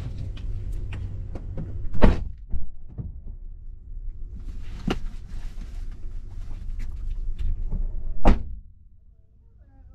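Thunks and knocks inside a car as the driver gets out, with the loudest, a car door shutting, about eight seconds in. A low rumble in the cabin drops away after it.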